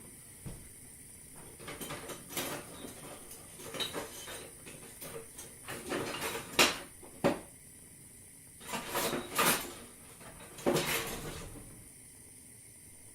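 Kitchen clatter while eggs are being fried: a run of irregular knocks and scrapes of cookware and utensils being handled. The sharpest knocks come a little past the middle and near the end, over a steady faint hiss of frying.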